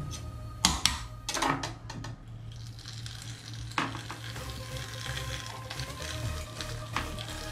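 Wet crackling and squelching of minced wild boar and pork being forced through a sausage stuffer's nozzle into a casing, with a few sharp pops. Quiet background music plays over it.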